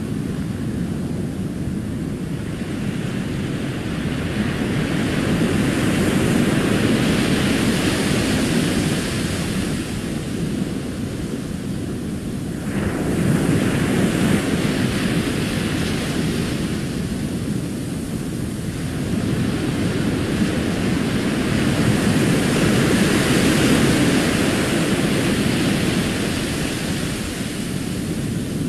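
Recorded ocean surf: waves rolling in and washing up a sandy beach, swelling and ebbing in long surges, with a wave breaking sharply about thirteen seconds in.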